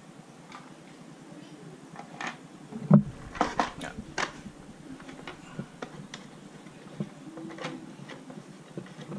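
Grey plastic waterproof battery box being moved and handled on a table: one sharp thump about three seconds in, followed at once by a quick run of clicks and knocks, then a few light taps.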